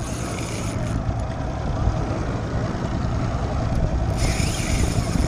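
Boat's outboard motor running with a steady low rumble.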